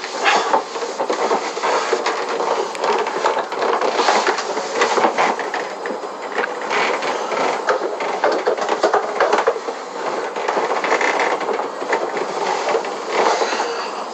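Continuous scraping, rubbing and knocking of a person squeezing into a household refrigerator and shifting about inside it, body and clothes rubbing against the plastic walls and door, with irregular bumps.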